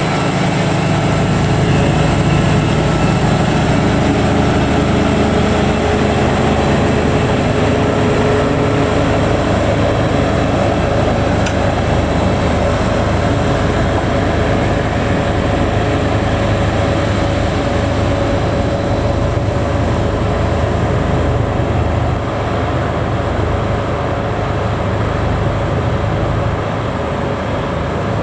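Diesel engine of a rail maintenance motor car running steadily under load as the machine moves off along the track.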